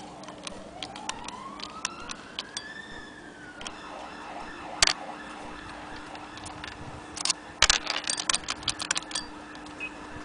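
Sharp metallic clicks and rattles from the parts of a Victorian sewing machine being handled: one loud click about halfway through, then a quick run of clicks lasting about two seconds. In the first three seconds a faint wailing tone slides down and back up, over a steady low hum.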